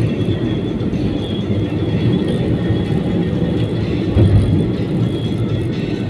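Steady low rumble of a moving vehicle, with faint high steady tones above it.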